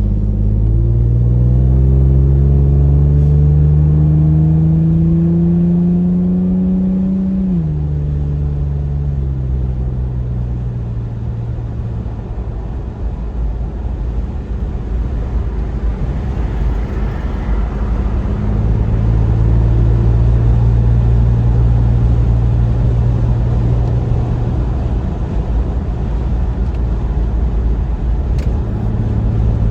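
Infiniti VQ35HR V6 running through a newly fitted Manzo stainless catback exhaust, accelerating: the pitch climbs for about seven seconds, drops sharply at a gear change, then settles into a steadier drone.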